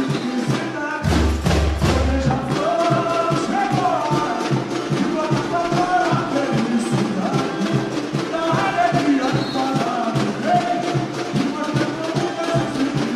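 Live samba-enredo: voices singing the melody over a samba school's bateria of surdo drums and percussion playing a fast, steady samba beat. A deep low rumble sounds for a second or so about a second in.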